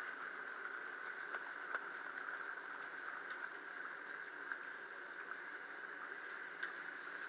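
Chicken biryani gravy with basmati rice boiling in a steel pot: a steady bubbling hiss with scattered small pops.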